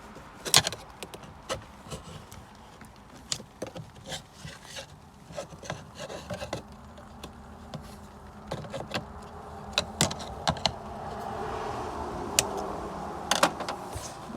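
Irregular clicks, knocks and rubbing of hand tools and parts being handled during engine work. A steadier scraping noise swells near the end.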